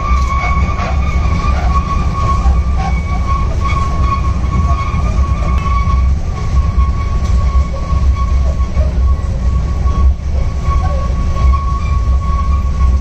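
A children's amusement-park ride train running along its track: a steady low rumble with a constant high whine over it and faint clicks.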